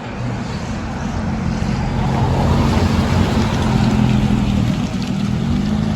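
Vehicle engine running steadily under way, a low even hum mixed with road and wind noise.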